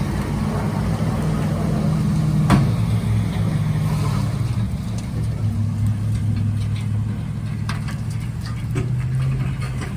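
Truck engine running under load with a steady low hum that shifts slightly in pitch, as a four-wheel-drive truck stuck in mud is pulled out by a second truck. A sharp click about two and a half seconds in.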